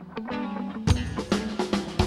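Live rock band playing: guitar and bass notes, then the drum kit comes in with a loud hit about a second in and keeps a steady beat under the guitars.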